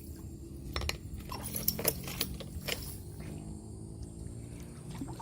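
A quick run of sharp clinks and knocks, about six in two seconds, over a low steady hum.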